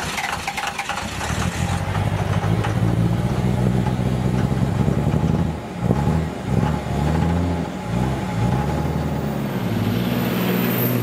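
Motor vehicle engine running just after starting, revved up and down several times in the second half.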